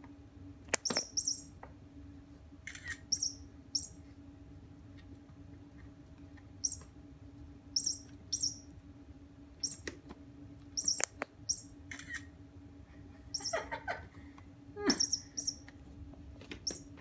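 Battery-powered hanging mouse chaser cat toy running: a steady motor hum as it winds the toy mouse up and down its string, with short high electronic squeaks, mostly in pairs, every second or two. A few sharp knocks from the kitten batting at it.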